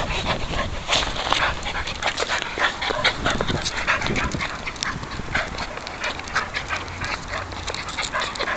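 A West Highland terrier puppy and a terrier-cross dog playing close to the microphone: scuffling noises with many short clicks and scrapes.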